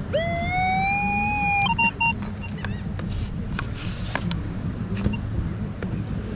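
A handheld metal-detecting pinpointer beeping in short quick pairs over a steady surf-and-wind rumble, with sand scraping from a scoop. Before the beeps, near the start, a long tone rises and then holds for about a second and a half.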